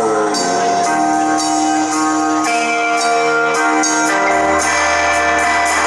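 Live rock band playing an instrumental passage: sustained guitar chords over steady, ticking percussion, with a low bass note coming in about four seconds in.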